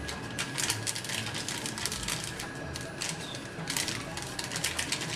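A small plastic sachet crinkling and crackling in rapid, irregular ticks as it is squeezed and shaken to tip its powder out.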